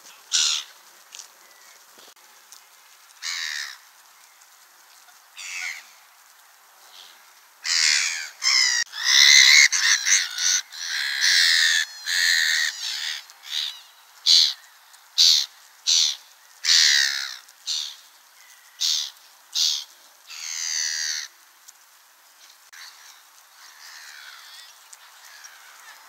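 Black-headed gulls calling: a few high-pitched calls at first, then a busy run of many quick, overlapping calls lasting about a dozen seconds before they stop.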